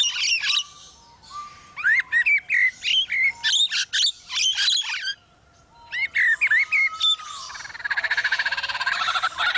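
Lyrebird singing a run of mimicked calls: three groups of quick, sweeping whistled notes with short gaps between them, then a fast, even rattling series near the end.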